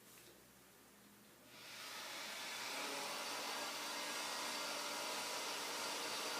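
A steady rushing hiss that builds up over about a second after a quiet start, then holds steady.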